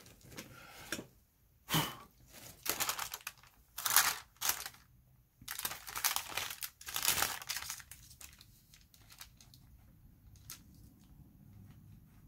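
Thin translucent paper sheet crinkling and rustling as it is handled and slid over a pastel drawing, in a run of irregular rustles over the first seven or eight seconds, then only faint light scratches.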